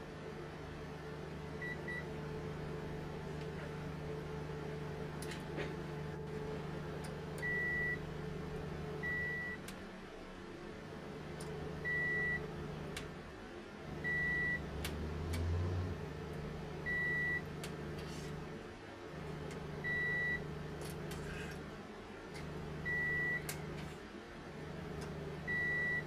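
Short single-tone electronic beeps, eight in all from about a quarter of the way in, each about half a second long and every two to three seconds, over a steady low electrical hum with a few faint clicks.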